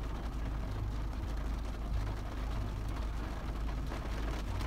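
Car engine idling steadily, a low rumble heard from inside the cabin.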